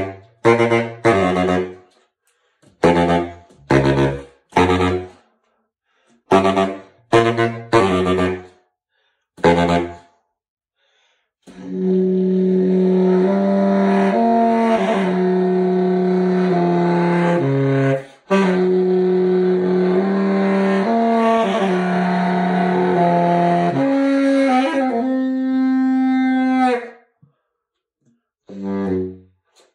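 Solo baritone saxophone playing: loud, short, separated low notes for the first ten seconds, then after a brief pause a long run of held notes moving up and down by steps, closing with a few more short notes near the end.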